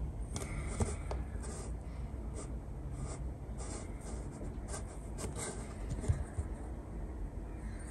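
Hands handling a SIRUI B-00K metal ball head: a quick-release plate and clamp scraping and rubbing as they are fitted and the knobs worked, with a couple of sharp clicks, about a second in and about six seconds in. A steady low rumble sits underneath.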